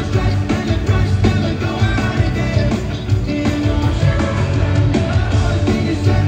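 Pop-rock band playing live through an arena PA: drums, electric guitar and bass with a lead vocal, loud and steady.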